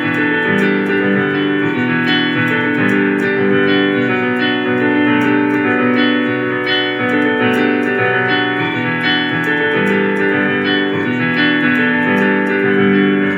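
Instrumental music from a band sound check: sustained keyboard chords with guitar, playing steadily without singing.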